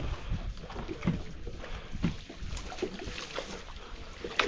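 Irregular soft knocks and small splashes of water, roughly one a second, over a low hiss.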